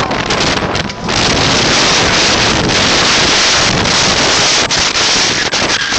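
Loud wind buffeting the phone's microphone as it rides a roller coaster at speed, a dense rushing roar that swamps everything else. There is a short dip just before the rush takes hold about a second in.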